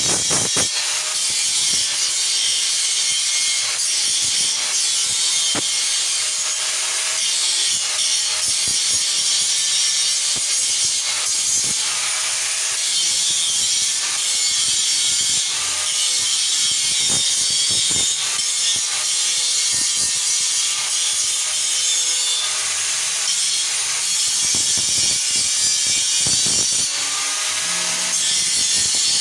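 Harsh, steady metalworking noise on a tubular steel window grill frame: a dense, high hiss with faint wavering tones running through it.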